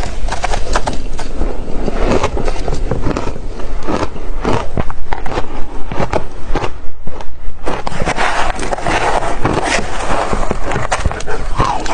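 Crunching of ice being bitten and chewed, a dense run of sharp cracks, settling into a steady chewing rhythm of about three crunches a second in the middle.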